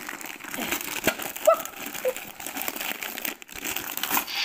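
Christmas wrapping paper being torn and crumpled as a present is opened by hand: a continuous crackling with many small sharp snaps.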